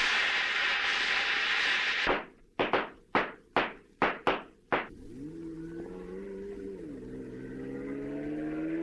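A steady hissing rush for about two seconds, then a run of about seven sharp struck chords, each dying away. About halfway through, a car engine comes in and accelerates, its pitch climbing, dropping once as at a gear change, then climbing again.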